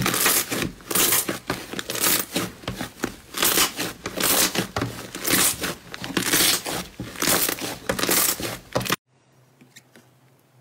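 Fluffy white slime squeezed and kneaded by hand, crackling and crinkling in repeated squishy bursts. It cuts off suddenly about nine seconds in, leaving a faint low hum.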